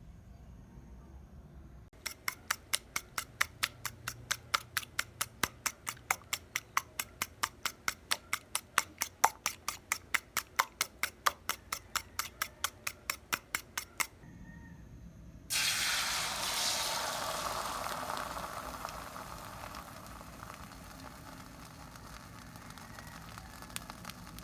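Eggs beaten in a bowl, the utensil clicking against the bowl about four times a second for some twelve seconds. The beaten egg then goes into a hot pan with a sudden loud sizzle that eases off to a steady frying hiss.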